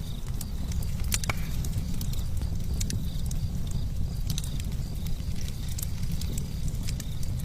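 Wildfire burning with irregular sharp crackles and pops, over a steady low rumble of wind on the microphone.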